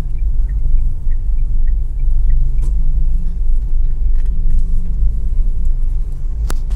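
Steady low rumble of a car driving, heard from inside the cabin. There is a faint ticking in the first couple of seconds.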